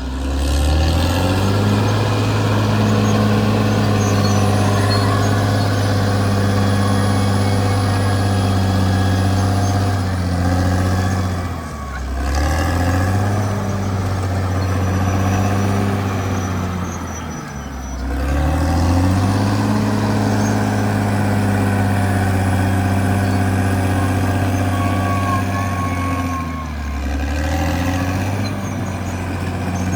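Caterpillar D6R XL bulldozer's diesel engine running hard, its revs dropping and climbing back up again three times in the middle and latter part, after rising at the start.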